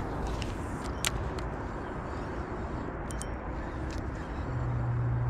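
Fishing reel cranked slowly during a steady retrieve, giving a few light clicks, over a steady low outdoor rumble; a low hum comes in near the end.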